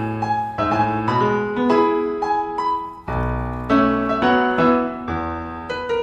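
Background piano music, a gentle melody of single notes and chords.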